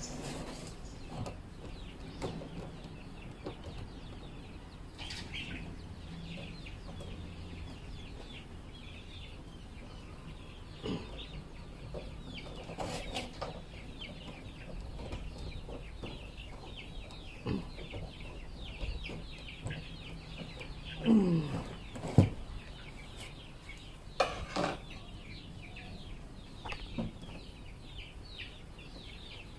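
Chickens clucking in the background with small birds chirping, over occasional light knocks and clatters of a plastic drum lid and its metal hinges being handled; a couple of louder knocks come about two thirds of the way in.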